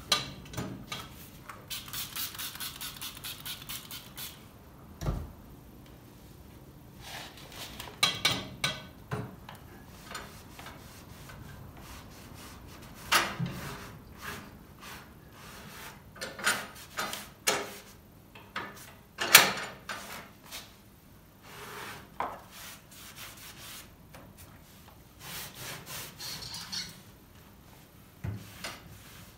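Cloth rubbing and scrubbing on the glass door of a cast-iron wood stove, in a run of quick strokes and then short scattered bursts, with a few knocks, one a dull thud.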